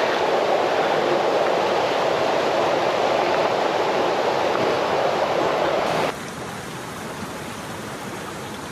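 Steady rush of falling water, a waterfall and its stream. About six seconds in it drops abruptly to a quieter, thinner rush.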